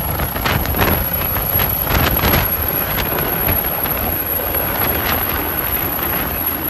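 Air ambulance helicopter lifting off and climbing: steady rotor and turbine noise with a thin high whine over it, and wind buffeting the microphone.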